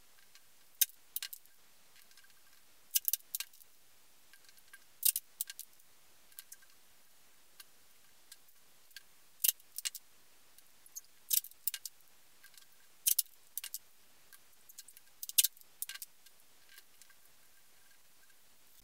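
Light, sharp clicks and crinkles of thin aluminium tape being handled and picked at, in small clusters every second or two.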